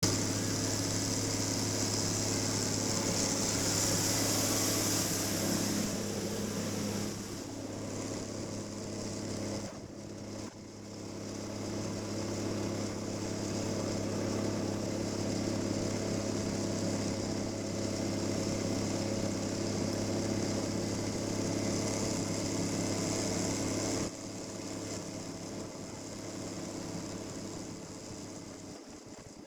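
Snowmobile engine running with a steady hum. It eases off briefly about ten seconds in and drops quieter near the end.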